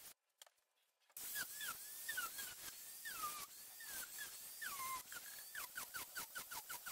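Angle grinder with a sanding disc grinding a styrofoam car-body buck. After a near-silent first second comes a rasping hiss with high squeaks of foam against the disc that glide up and down, quickening into rapid repeated squeaks, about five a second, near the end.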